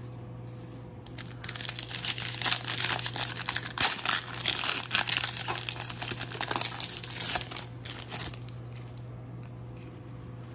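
Foil wrapper of a baseball card pack being torn open and crinkled by hand, a dense crackle from about a second and a half in until about eight seconds in.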